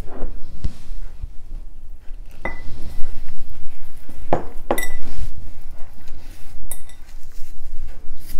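A hand mixes crumbly flour dough in a glass mixing bowl, the bowl giving several sharp clinks that ring briefly, with rustling of the dough in between.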